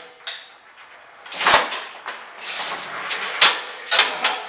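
Poulan Pro rear-tine tiller rolled down a ramp off a scissor-lift cart onto a concrete floor: irregular clanks and rattles from its wheels and frame, with a sharp knock about a second and a half in and two loud clunks near the end.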